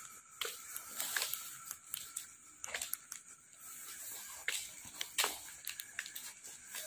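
Quiet night ambience with scattered soft clicks and rustles, irregularly spaced, from footsteps and handling of the recording phone while walking. A faint steady high tone runs underneath.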